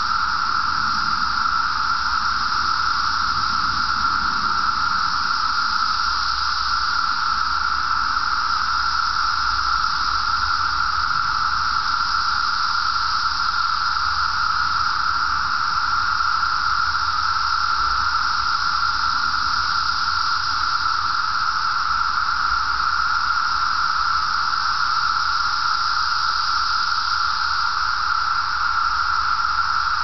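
Massed chorus of 17-year periodical cicadas (Brood XIII): a loud, steady, unbroken drone that neither rises nor falls.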